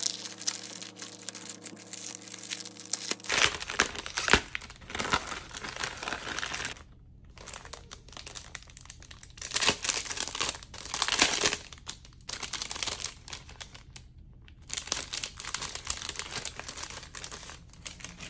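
Plastic packaging being torn open and handled, crinkling in irregular bursts with a few short pauses.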